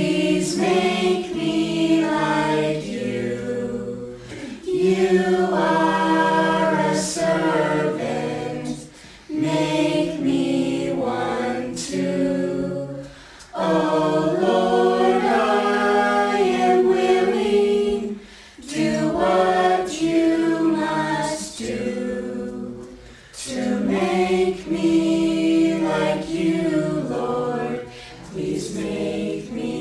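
A family group of adults and children singing a worship song together, in phrases with short breaks for breath between them.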